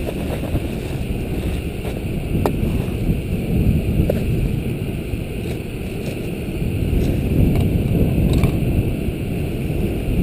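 Jetboil gas stove burner running steadily under its pot as the water heats, mixed with gusting wind buffeting the microphone. A few faint clicks and crinkles of a plastic bag being handled.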